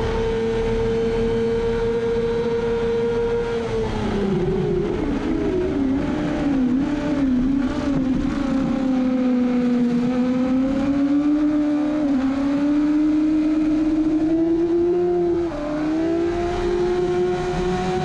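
Kawasaki ZX-6R's inline-four engine held at high revs in sixth gear, then falling in pitch through a string of short rev blips as the rider brakes and shifts down to second for a corner. It then climbs again under full throttle, with a quick upshift about fifteen seconds in, all over steady wind rush.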